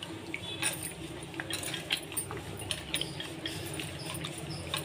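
A hand mixing a watery rasam mixture of ground spice paste, tomatoes and herbs in a steel bowl: faint soft splashing with scattered small clicks, over a faint steady hum.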